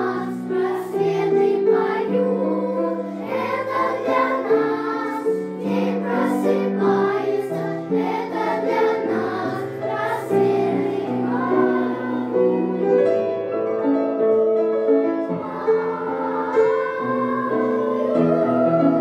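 Children's choir singing, with piano accompaniment sounding below the voices.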